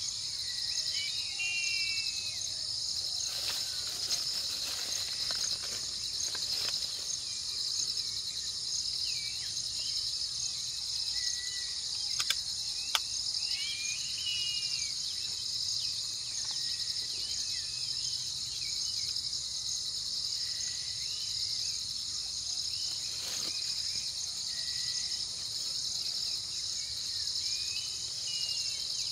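Steady, shrill insect chorus of crickets or cicadas, with short bird chirps now and then. Two sharp clicks come a little before halfway.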